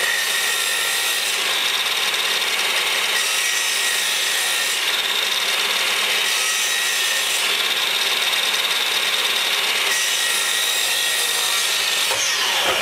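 Electric drop saw (mitre saw) running with its blade down in a timber architrave, taking small trimming cuts off the mitred end to work up to the marked line. The motor's note starts to fall near the end.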